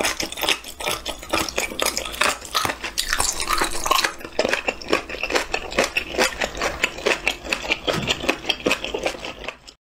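Close-miked eating sounds: a person chewing with many rapid small wet clicks and smacks of the mouth, mixed with metal chopsticks tapping and scraping against the pan and the soup pot.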